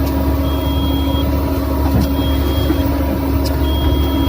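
Excavator's diesel engine running steadily, with its high warning beeper sounding three times, each beep under a second long and about a second and a half apart.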